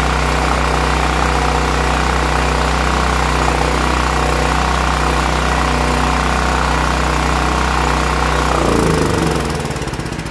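Westinghouse WGen9500 portable generator engine running at a steady speed with no surging, the sign that the surging from bad gas is cured. Near the end it shuts off, its pitch falling and the firing pulses slowing as it spins down.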